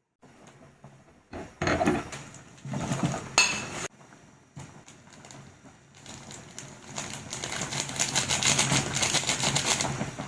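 A wooden spatula clattering and scraping against a metal cooking pot in a few sharp knocks, then dense, rapid crackling from soup at a rolling boil that builds and stays loud toward the end.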